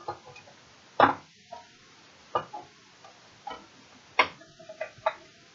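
A few irregular knocks and taps of small objects being handled, the loudest about a second in.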